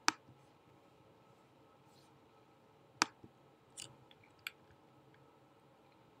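A few sharp computer-mouse clicks over faint room hiss: one right at the start, then three more between about three and four and a half seconds in.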